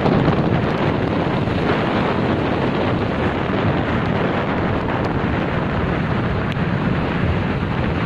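Strong wind buffeting the microphone over the steady noise of storm surf breaking on a shingle beach.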